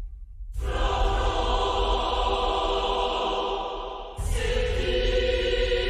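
Background music: a choir singing long held chords, coming in about half a second in and moving to a new chord about four seconds in.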